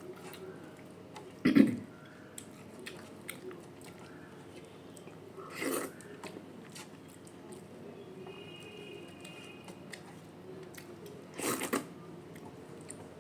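A person chewing a meal close to the microphone, with small clicks of eating and three louder crunching bites: about a second and a half in, near the middle, and near the end, the first the loudest.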